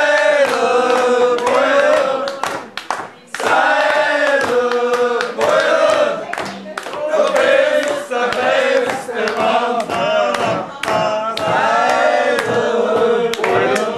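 A group of men singing together in a sing-along, in long held phrases with a short break for breath.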